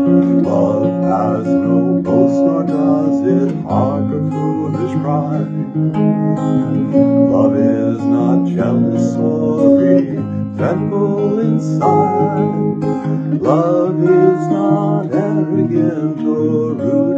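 Acoustic guitar playing a song accompaniment, chords strummed and plucked in a steady pattern.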